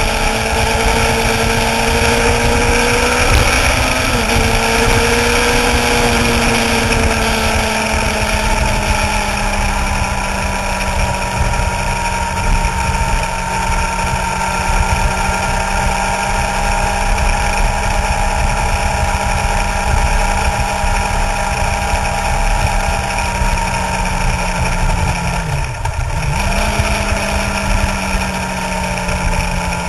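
Suzuki GSX-R sportbike's inline-four engine running at a steady cruising speed, with wind rumble on the microphone. About 26 seconds in, the engine note dips briefly and comes back.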